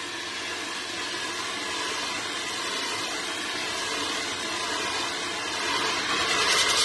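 Fire extinguisher discharging: a continuous hissing spray that slowly grows louder, then surges stronger and brighter near the end.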